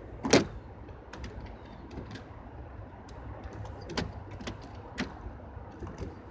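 Plastic gutter guard being worked into place on a vinyl gutter: one sharp click about a third of a second in, then scattered lighter clicks and taps, over a low steady background rumble.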